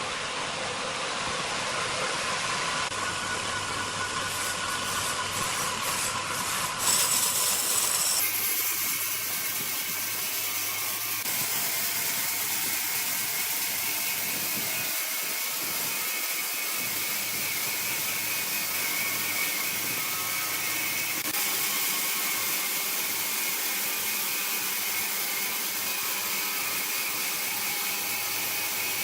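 Sawmill machinery running steadily with a grinding, mechanical noise. There is a brief louder moment, then the sound changes abruptly about eight seconds in to a steady run with a faint high whine.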